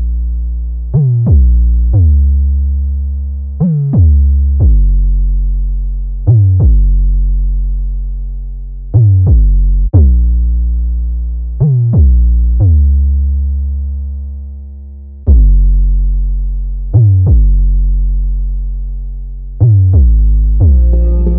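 Background music: deep bass notes struck one at a time in a slow, uneven rhythm, each fading away.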